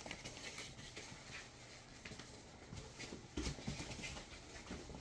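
Faint, scattered light knocks and rustles of boxed items and packaging being handled and set down, a few slightly louder taps about three and a half seconds in.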